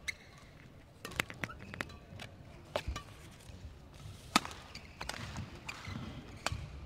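Badminton rackets striking a shuttlecock in a warm-up rally: a string of sharp, irregular hits over the hum of an indoor hall, the loudest about four and a half seconds in.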